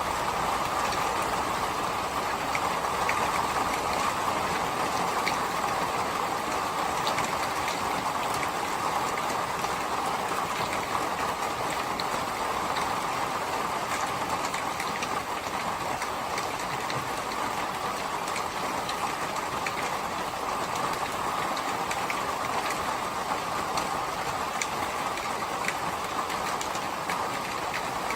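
Steady rain, an even hiss with scattered light drop ticks.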